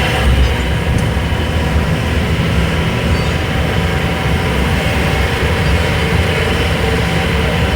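Small tourist land train running steadily, heard from on board: a continuous low engine hum with rolling noise.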